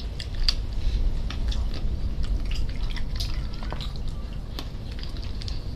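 Close-up eating sounds: irregular wet mouth clicks and smacks from chewing juicy roast chicken eaten by hand, over a steady low rumble.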